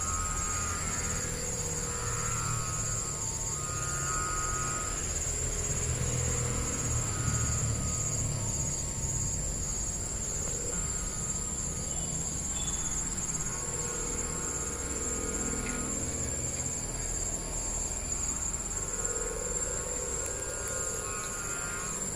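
Wavering humming tones from gapangan kites flying overhead swell and fade every few seconds over a steady, high, pulsing insect trill, with a low wind rumble on the microphone.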